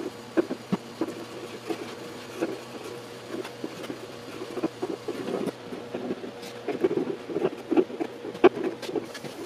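A wood chisel scraping down high spots of old vinyl decal residue and paint on a steel truck tailgate: short irregular scraping strokes with small clicks, a few sharper scrapes toward the end.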